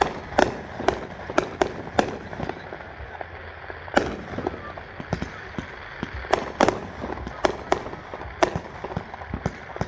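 Aerial fireworks bursting overhead: a quick, irregular run of sharp bangs. The bangs thin out for a couple of seconds in the middle, then pick up again in a fast cluster.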